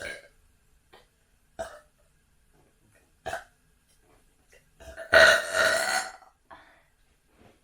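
A person burping from carbonation after chugging Cherry Pepsi. One long, loud burp lasts over a second, about five seconds in. Before it come three brief, quieter sounds about a second and a half apart.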